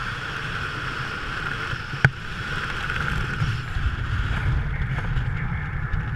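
Steady motor drone with wind noise on the microphone, and one sharp click about two seconds in.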